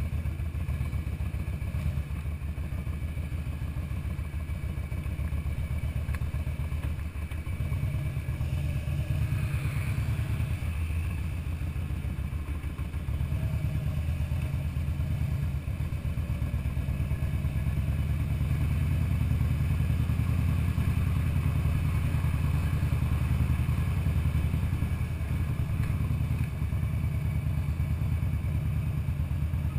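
Harley-Davidson Fat Boy's air-cooled V-twin engine running under way at low speed, with a steady pulsing low exhaust beat. Its level rises a little about 8 seconds in and again near the middle as the rider opens the throttle.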